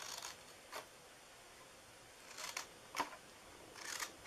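Scissors snipping through cardstock: about five short, crisp cuts at uneven intervals.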